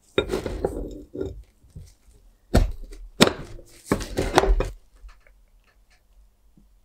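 Large steel open-end wrench clanking and scraping against a rusted hex plug and the cast metal lamp housing, with the housing knocking and sliding on a wooden workbench. There is a scraping rattle about a second long near the start, then two sharp knocks about half a second apart and a short clatter.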